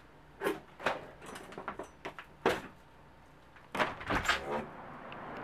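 Balcony window frame being unlatched and slid open: a few sharp clicks and knocks, then a scraping, rattling slide about four seconds in, after which the steady noise from outside grows louder.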